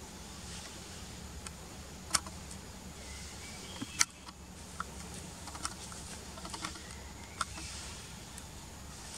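Leaves and a twig crackling and snapping as a macaque grabs and pulls at a leafy branch: scattered sharp clicks, three of them loud, about two seconds in, four seconds in and near the end. A steady hiss lies underneath.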